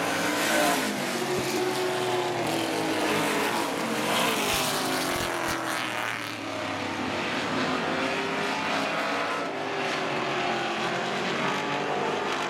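Street stock race car engines running together around the oval, their pitch rising and falling as the cars accelerate through the straights and lift for the turns.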